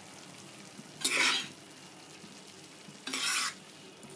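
Slotted metal spoon stirring syrupy sweet rice in a non-stick pan: two scraping strokes, each about half a second, about two seconds apart. Between them, the rice gives a faint steady sizzle as it cooks.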